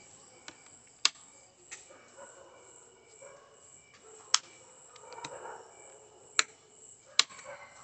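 Electrical contactor whose 220 V coil is fed only 110 V, giving about five sharp clicks at uneven intervals over a faint hum: the coil lacks the current to pull the contacts in firmly, so it chatters.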